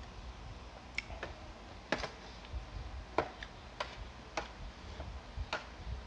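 Close-up eating sounds: a string of short, sharp clicks and smacks, about eight in all, irregularly spaced.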